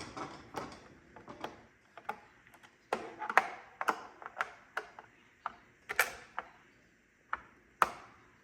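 Irregular plastic clicks and knocks as the underside of an iRobot Roomba i4+ robot vacuum is handled and its brushes are pulled out.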